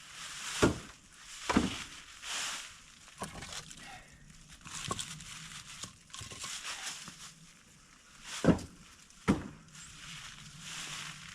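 Split firewood being handled for a wood stove: about six sharp wooden knocks at irregular intervals, with scraping and rustling between them.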